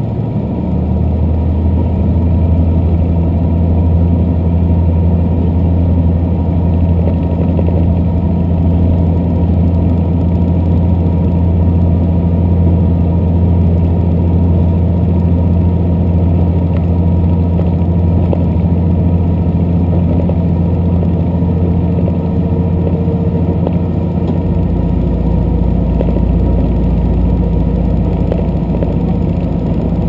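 Diesel limited express train running, heard inside the passenger car: a steady engine drone under a haze of running noise, with a deeper hum coming in near the end.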